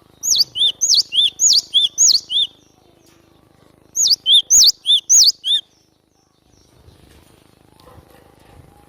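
Cinereous tit (glatik batu) singing: two bouts of quick, repeated, sharply falling notes, about eight and then about six, with a pause of a second and a half between them.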